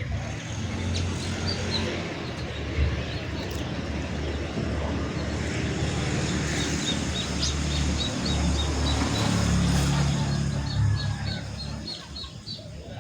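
Caged songbirds chirping in short repeated high notes, about twice a second, over a loud steady rushing noise with a low hum.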